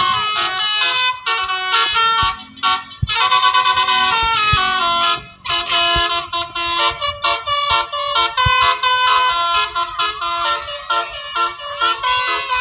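Basuri telolet multi-tone bus horns playing fast melodic tunes, several notes stepping up and down at once, with short breaks about two and five seconds in.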